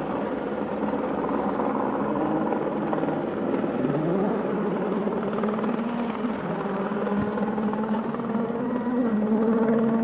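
An engine running at varying speed, its pitch climbing sharply about four seconds in and then wavering up and down.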